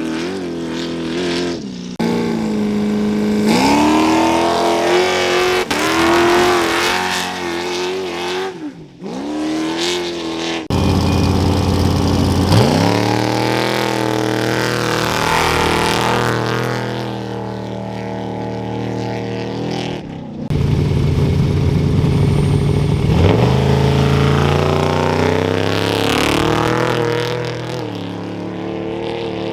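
Desert off-road race trucks and buggies launching off a start line one after another. Each engine revs and then climbs steeply in pitch through the gears as it pulls away, and the sound breaks off abruptly between launches.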